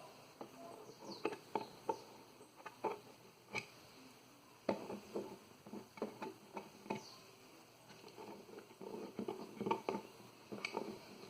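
Faint scattered clicks, taps and scrapes of small screws and plastic parts being handled by hand while a plastic speaker cabinet is taken apart.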